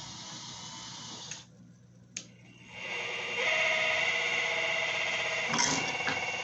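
RC model excavator's hydraulic pump motor whining steadily. It stops for about a second and a half, with a single click in the gap, then starts again louder. A short knock comes near the end.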